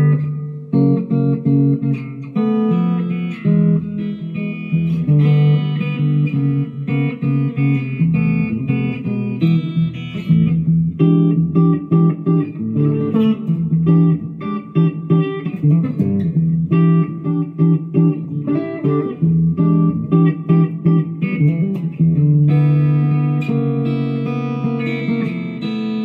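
Harley Benton DC-580CH SG-copy electric guitar played through a small Fender combo amp: picked notes and chords in a steady run, with a chord left ringing near the end.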